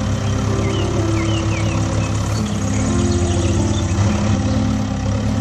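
Vehicle engine running steadily at a low, even level.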